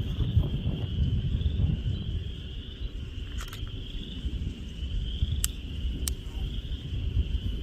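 A steady high-pitched chorus of calling animals, with a low rumble underneath and a few sharp clicks.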